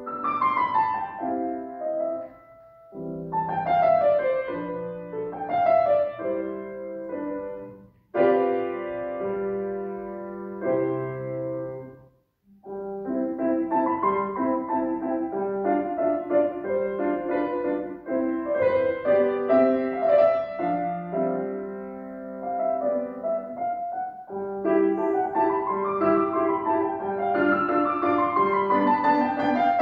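A piano playing a classical piece, with repeated falling runs of notes and short breaks between phrases about 3, 8 and 12 seconds in.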